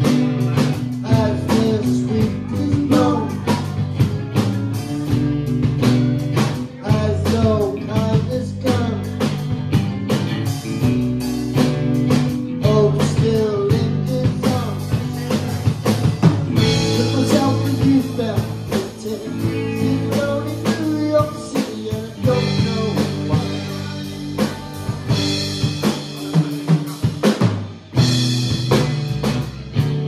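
Live rock band playing: drum kit, electric and acoustic guitars and bass guitar together. The cymbals ring brighter from about halfway through.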